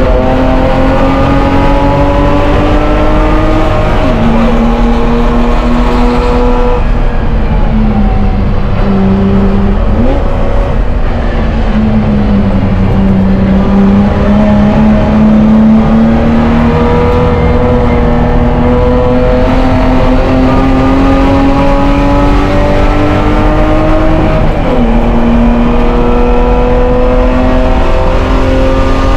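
BMW E30 race car engine, heard from inside the cabin, running hard under racing load. It climbs in pitch and then drops sharply at gear changes about four seconds in and again near the end. In the middle it falls and dips, then climbs slowly again.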